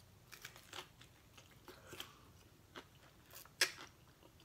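Close-miked chewing of a mouthful of taco: small crunches and wet mouth clicks, the loudest crunch about three and a half seconds in.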